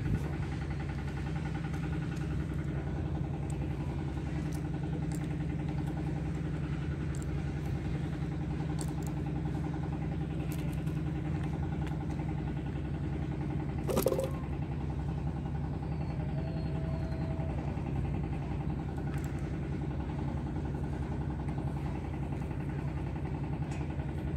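A motor running steadily with an unchanging low hum. A single sharp knock sounds about fourteen seconds in.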